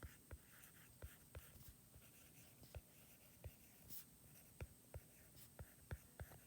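Handwriting on an iPad's glass screen: faint, short, irregular taps, about two a second.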